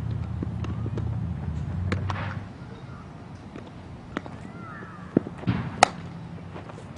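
Sharp cracks and pops of baseball infield practice: a baseball meeting a bat and smacking into a leather glove, a few separate strikes in the second half with the loudest crack near the end. A low rumble fades out about two and a half seconds in.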